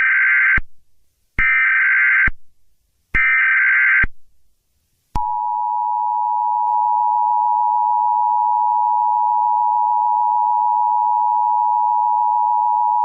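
Emergency Alert System tones: the end of one SAME header data burst and two more buzzy data bursts, each just under a second long and about a second apart, then the steady two-tone EAS attention signal starting about five seconds in and holding on.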